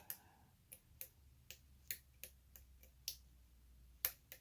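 Faint, sharp metal clicks from a lock pick working the pin stacks inside a lock cylinder during single-pin picking, about two to three clicks a second at an uneven pace.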